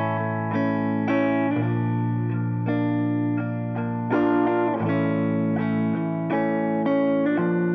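Background music led by a guitar, with plucked notes struck about every half second over sustained chords.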